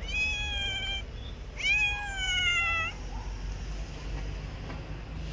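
A stray cat meowing twice: a meow of about a second, then a longer, louder meow that rises sharply at its start and slowly falls.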